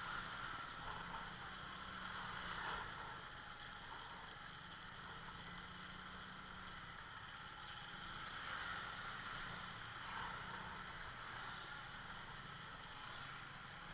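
Steady low running noise of a motor scooter on the move, with wind and road noise.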